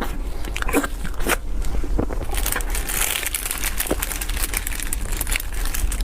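Close-miked eating sounds from a person eating dessert: bites and crunching with sharp clicks and crackles, densest about halfway through.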